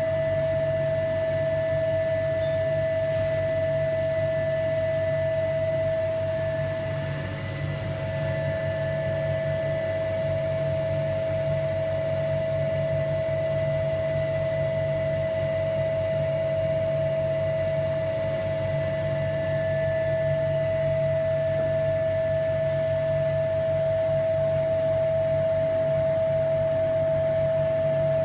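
Vacuum pump running steadily, drawing vacuum on the bagged carbon-fibre layup during resin infusion: a low hum under a constant high whine, dipping briefly about seven seconds in.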